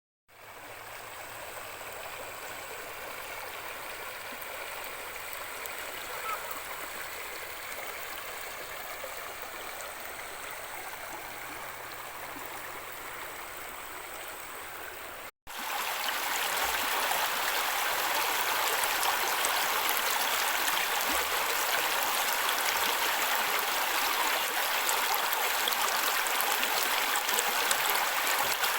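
Mountain stream flowing steadily. About halfway through the sound drops out for a moment and comes back louder and brighter.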